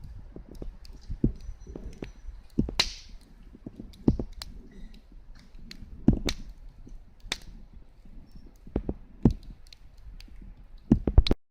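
Wood campfire crackling, with irregular sharp pops a second or so apart and a few louder snaps, over a low rumble of wind. The sound cuts off suddenly near the end.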